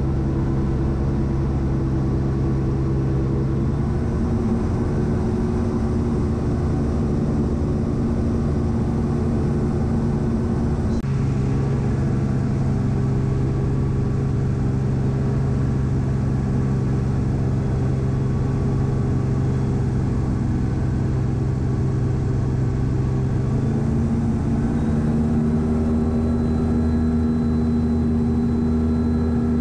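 Gyroplane's engine and pusher propeller droning steadily, heard from inside the enclosed cockpit during approach and landing. The engine note changes abruptly about eleven seconds in and shifts again around twenty-four seconds in.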